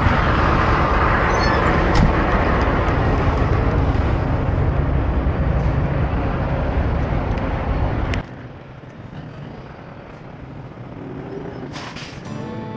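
Wind buffeting the microphone over idling diesel semi-truck engines, a loud steady rush with a low hum that cuts off suddenly about eight seconds in. Guitar music starts near the end.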